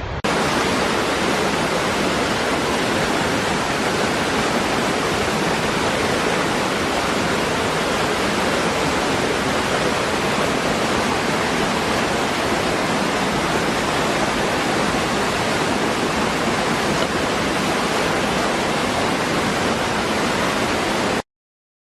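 Steady rushing of a waterfall, an even roar of falling water with no change in level. It starts abruptly just after the beginning and cuts off suddenly near the end.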